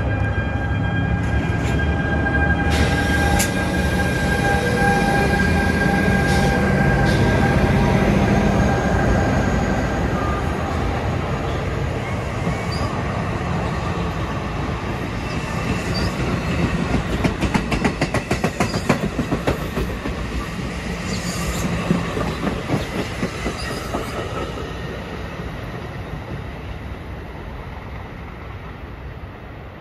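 An NJ Transit Bombardier ALP-45A dual-mode locomotive passes close by on its diesel engines, pulling bi-level coaches, with a steady engine hum and whine. About halfway through, the wheels click rapidly over the rail joints as the cars go by. The train then fades as it pulls away.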